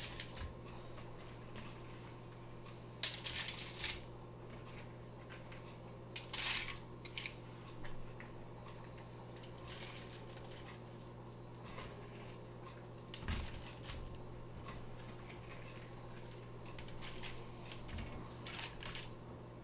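Aluminium foil crinkling in short, scattered bursts as hands move breaded fish fillets around on a foil-lined baking sheet, over a steady low hum.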